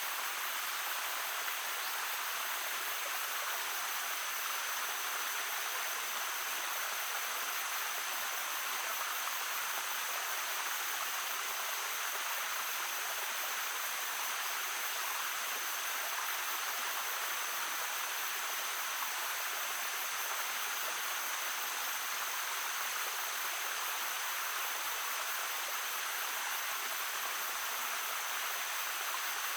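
Shallow brook babbling steadily, an even, unbroken rush of running water.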